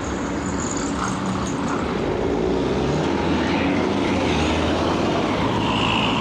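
Motor vehicle traffic running steadily, a low engine hum over road noise that grows a little louder about two seconds in.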